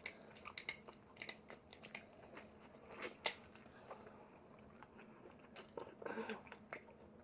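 King crab leg shells being cut and cracked open, giving scattered small clicks and crunches, mixed with chewing.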